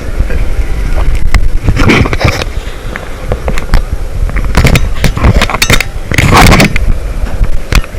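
Loud wind buffeting and rubbing on the microphone during a fast amusement-park ride: deep rumbling with irregular crackles and knocks, loudest about six seconds in.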